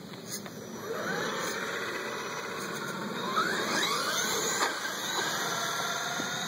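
Electric RC monster truck (Traxxas E-Maxx with a 2050kv brushless motor on a Tekin RX8 speed controller) running on asphalt: a motor and gear whine that rises and falls in pitch with the throttle, climbing steeply about three seconds in, over tyre noise.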